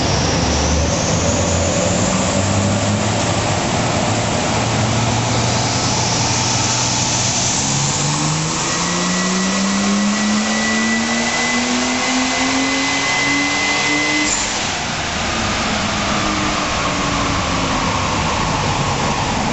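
Ford BF Falcon F6 Tornado's turbocharged 4.0-litre straight-six on a chassis dyno: the revs climb in steps, then a full-throttle pull rises steadily in pitch for about six seconds with a high whine over it. About fourteen seconds in it lets off and the revs fall away as the rollers spin down.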